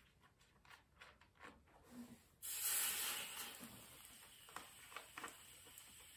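Aerosol spray can: quick rattling clicks of its mixing ball as it is shaken, then about two and a half seconds in a loud spray hiss starts and goes on more quietly, with a few more clicks.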